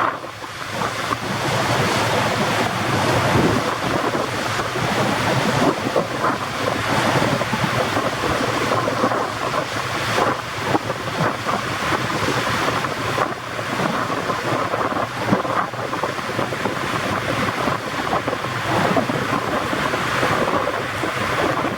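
Steady rush of water and wind buffeting the microphone as a Flying Cat 40 catamaran fast ferry runs at about 30 knots.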